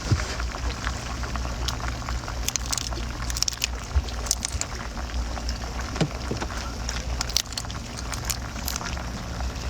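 Raw shrimp being washed by hand in water: sloshing and splashing with scattered sharp clicks and knocks, over a steady low hum.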